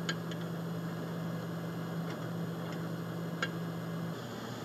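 Steady low hum of a farm machine running, heard through the hall's speakers from the projected video, with a few faint ticks. The hum stops shortly before the end.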